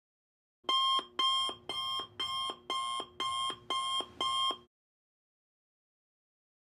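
Electronic wake-up alarm going off: a short two-note tone repeated eight times, about two a second, that stops after about four seconds.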